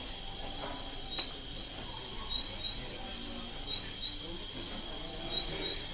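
Crickets chirping steadily, a high thin trill with short repeated chirps over it. A few faint soft slaps from pizza dough being stretched and flipped between the hands.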